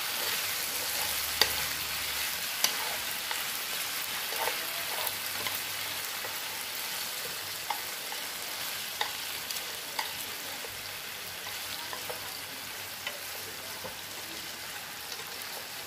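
Chicken wings sizzling in a frying pan: a steady hiss with sharp pops every second or so, easing slightly towards the end.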